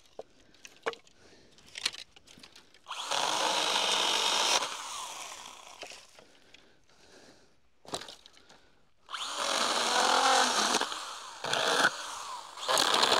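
Stihl GTA 26 battery pruning saw cutting through thin dry elm sticks in short runs. It cuts about three seconds in for under two seconds and again for about two seconds near nine seconds in, then briefly twice near the end. A few sharp clicks fall between the cuts.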